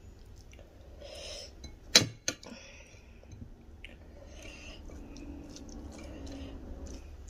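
Quiet mealtime handling sounds: food being picked and mixed by hand, with one sharp clink of tableware about two seconds in and a few fainter clicks later.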